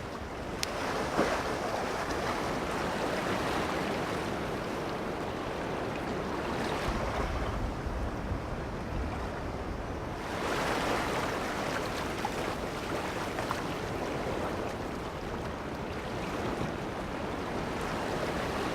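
Sea waves washing in on a shore, swelling and easing in slow surges, with wind.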